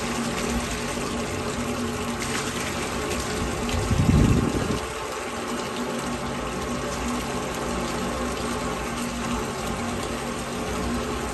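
Grey wastewater pouring steadily out of a drain pipe while a drain-cleaning line works inside it, over a steady machine hum. About four seconds in the flow briefly surges louder.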